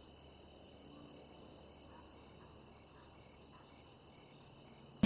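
Faint, steady chirring of crickets, a high even drone that holds unchanged throughout.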